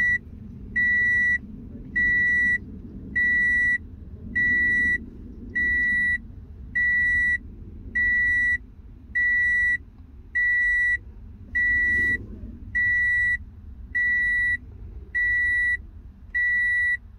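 Car's electronic warning chime beeping steadily, one short beep about every 1.2 seconds, while a new key is being registered to the immobilizer with the key in the ignition and the ignition off. A light click about twelve seconds in.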